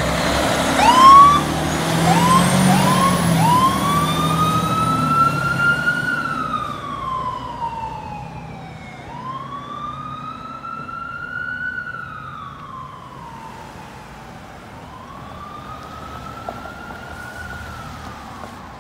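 Fire engine siren: a few short rising whoops, then long wails that rise and fall, growing fainter as the engine drives away. The truck's engine rumbles underneath in the first few seconds.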